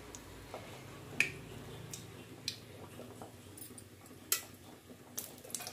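A few sharp clicks and taps of a spoon against an iron kadai as ghee is spooned in, over a faint low hum.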